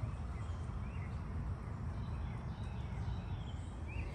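Outdoor garden ambience: a steady low rumble with several faint, short bird chirps scattered through it.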